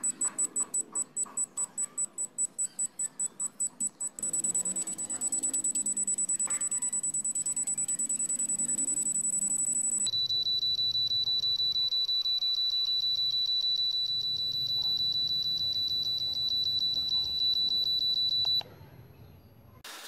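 Digital satellite finder meter's buzzer beeping, the beeps coming faster as the dish is turned toward the satellite and the signal strength climbs. At first it gives about five or six high beeps a second. After about four seconds it becomes a rapid, nearly continuous beeping, which drops to a lower pitch about halfway through at a strong signal and stops shortly before the end.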